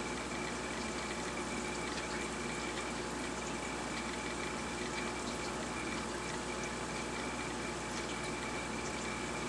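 Steady water noise of an aquarium's filter and pump running, with a faint steady high-pitched whine.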